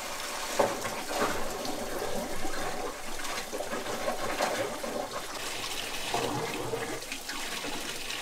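Water running steadily from the spout of a roadside drinking fountain and splashing into the trough below, with a few brief louder splashes.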